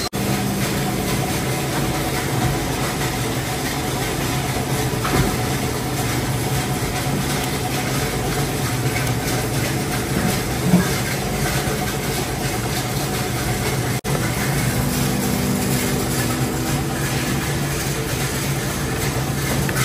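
Steady hum of plastic injection moulding machinery running, with a couple of brief clicks about five and eleven seconds in.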